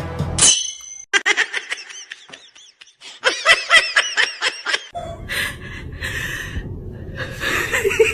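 Rapid, high-pitched laughing in quick repeated bursts, followed by looser, noisier laughter and voices.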